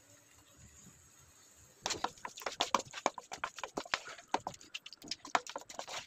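Wooden spatula stirring a pan of cooked double beans and masala, with a quick, irregular run of scrapes and knocks against the pan starting about two seconds in.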